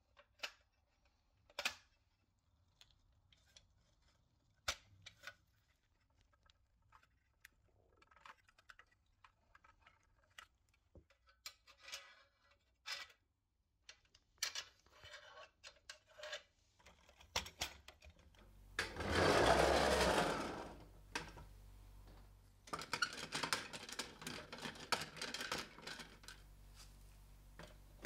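Light clicks and taps of painted sheet-metal toy truck parts being handled and screwed together with a screwdriver. Partway through, a louder noisy stretch of about two seconds is followed by a softer stretch of handling noise with ticks.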